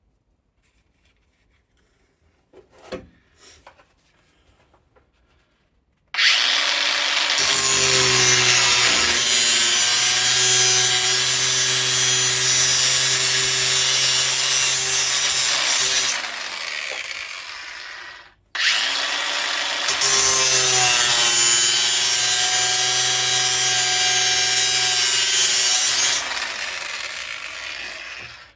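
Angle grinder cutting through the sheet steel of a car's roof corner. It starts up about six seconds in, runs for about ten seconds and winds down, then starts again and runs for about eight seconds before winding down. A few faint clicks come before it starts.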